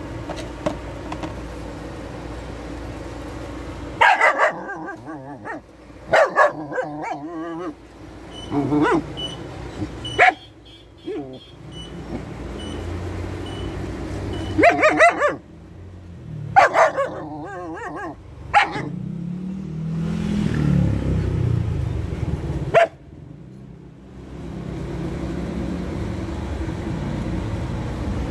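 A dog barking in short single barks and yips, about eight of them spread out with long gaps between.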